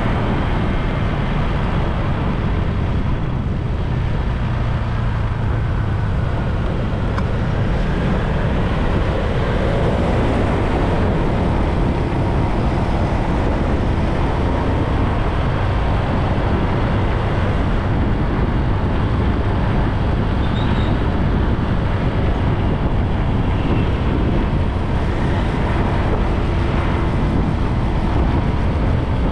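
Steady wind rumble on the microphone of a moving bike, with road and passing-traffic noise.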